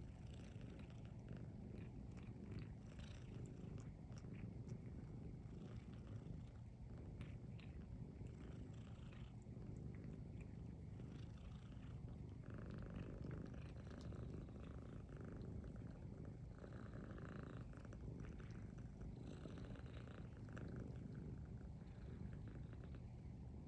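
Domestic cats purring, a steady low rumble, while a young tabby suckles and is groomed by an older grey-and-white cat. Faint soft clicks from licking and suckling sit over the purr.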